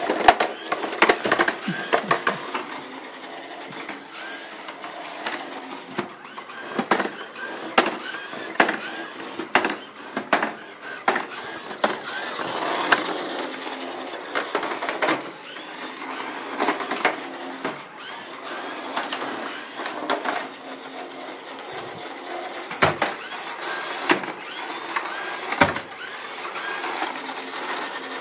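Kobuki robot base's geared drive motors whirring as it drives over a tile floor, the pitch shifting as its speed changes. Many irregular clicks and knocks occur throughout.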